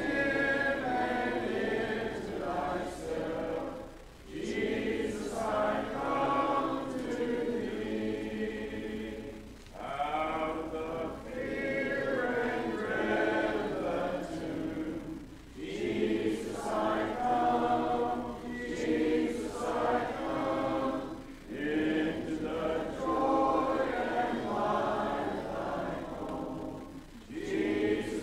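A congregation singing a hymn unaccompanied, in the a cappella style of the Churches of Christ, with phrases of about six seconds and a short breath between each.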